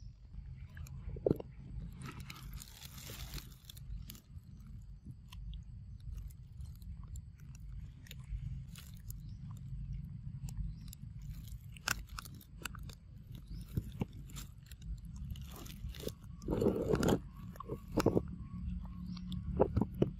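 Young macaque eating ripe mango: irregular wet chewing, biting and crunching clicks, with a louder cluster about three-quarters of the way through, over a steady low rumble.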